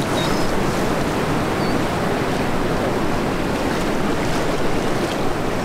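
Surf washing in over a flat sandy beach: a steady rush of breaking waves and foamy shallow water running over the sand.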